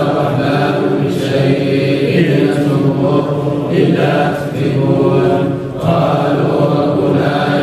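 A group of men reciting the Quran aloud in unison, a steady chanted recitation with short pauses for breath about four and a half and six seconds in.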